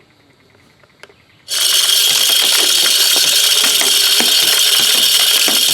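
Automatic deer feeder running a test cycle: its spinner motor starts suddenly about a second and a half in and flings corn out, a loud steady whirring rattle packed with kernels striking around it.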